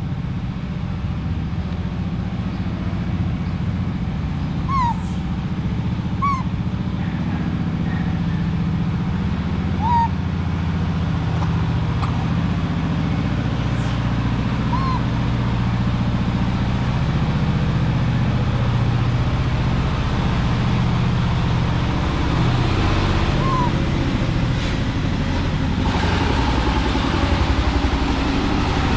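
An engine running steadily with a low hum. About five short, high chirps are scattered through it.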